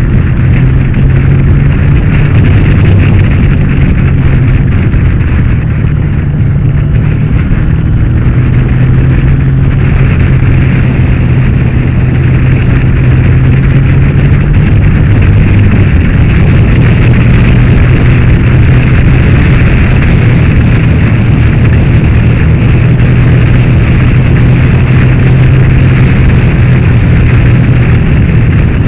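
Motorcycle engine running steadily at road speed, its engine note stepping in pitch a few times, under heavy wind noise buffeting the onboard camera's microphone.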